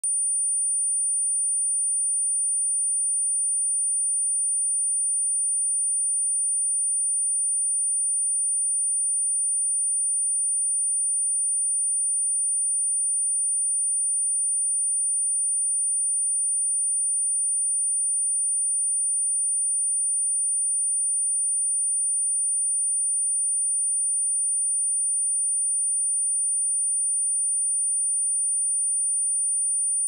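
A pure 9323 Hz sine-wave test tone: a single steady high-pitched whistle at constant loudness with no change in pitch.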